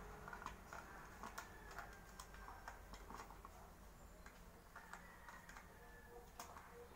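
Faint, irregular light clicks and taps of small plastic toy kitchen pieces being handled and set against the toy oven.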